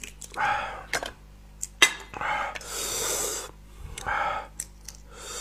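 Several loud breaths drawn in and out through the mouth, one long and hissing, with a few small sharp clicks of snail shells being pried apart by fingers.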